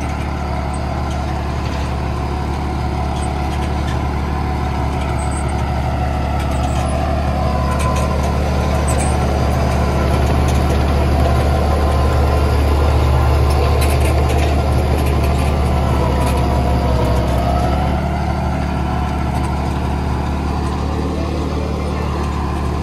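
Tractor diesel engine running steadily under load as it pulls a tined seed drill through tilled soil, slightly louder in the middle.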